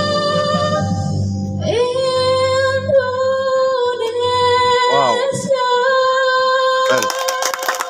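Teenage girl singing solo, holding one long note from about two seconds in, with a wavering vibrato around the middle. Near the end a strummed guitar accompaniment comes in.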